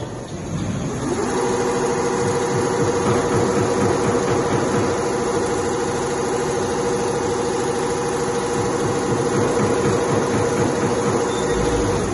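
Richpeace two-head CNC leather sewing machine stitching with both heads. It rises in pitch as it speeds up over the first second or so, runs with a steady hum and fast needle strokes, then stops near the end.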